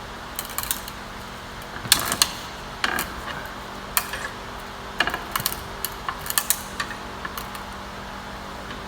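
Irregular metallic clicks and clanks of tools and parts being handled at a bench vise, over a steady low hum.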